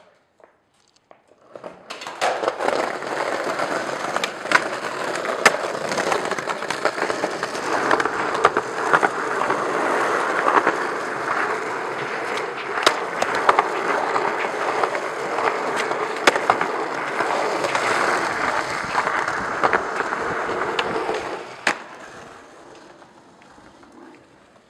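Skateboard wheels rolling over concrete pavement in a steady rough rumble, with sharp clacks every few seconds. It starts about two seconds in and fades out near the end.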